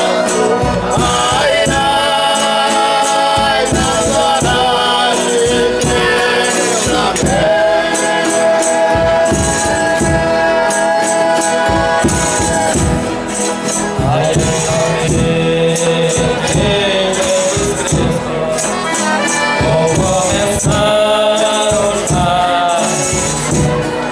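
Folia de Reis music: voices singing long held notes together over a steady jingling tambourine beat.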